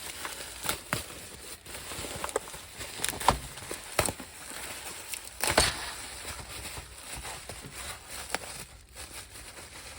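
Plastic bubble wrap being handled and pulled off a toy, crinkling and crackling with scattered sharp clicks.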